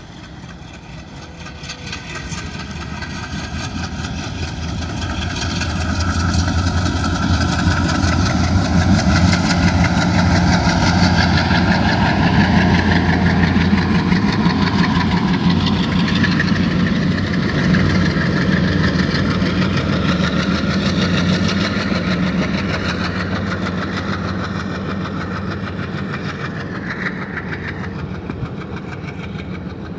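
Pair of ALCo diesel locomotives chugging under load as they pass, a deep steady engine throb that swells over the first several seconds and then slowly fades as they move away.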